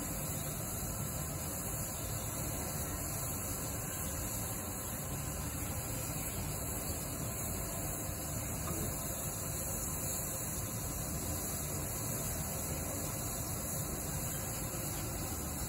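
Steady hiss with a low rumble from a steam locomotive standing still at the head of its train. There are no exhaust beats.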